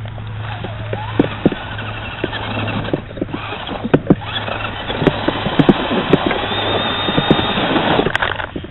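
Axial SCX10 RC crawler driving over leaf litter and sticks: its electric motor and gears whir, rising and falling with the throttle, amid many sharp clicks and crackles from the tyres on twigs. The whine rises near the end as the truck speeds past, then cuts off shortly before the end.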